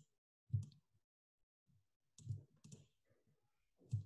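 Four faint, spaced-out computer mouse clicks while a line is drawn on screen.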